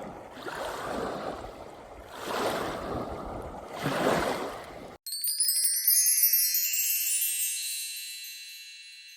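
Three swells of rushing noise, then about five seconds in a bright, shimmering chime sound effect, like a wind-chime sweep, that starts suddenly and rings away to a slow fade.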